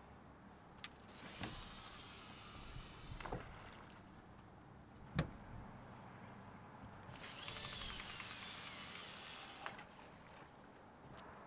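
Baitcasting reel spool whirring as line pays out on two casts, each lasting a couple of seconds, with sharp clicks of reel and rod before, between and after them; the click about five seconds in is the loudest.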